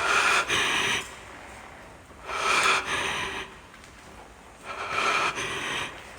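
A person breathing heavily close to the microphone: three loud, rushing breaths about two and a half seconds apart, each lasting about a second.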